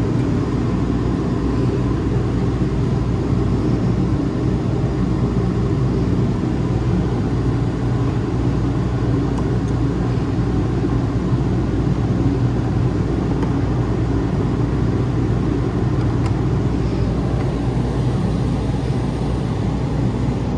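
Steady low rumble of a running motor, unchanging throughout, with a few faint clicks.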